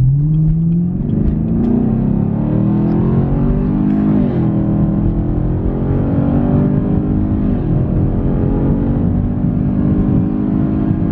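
2018 Chevrolet Camaro SS's 6.2-litre V8 under hard acceleration, heard from inside the cabin: the revs climb, drop sharply at an upshift about four seconds in and again at about seven and a half seconds, then keep pulling.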